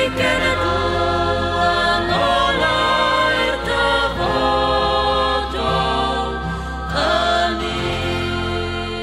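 Background music with voices singing over sustained low notes, starting to fade out near the end.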